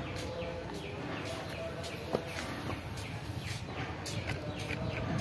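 Small birds chirping repeatedly in short, quick, falling notes over a steady low background rumble, with one sharp click about two seconds in.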